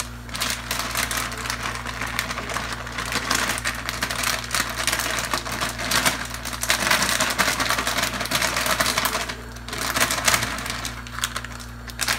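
Grated cheese shaken from a canister over a pan of cream sauce: a dense, crackly rattle in long stretches with two short pauses near the end.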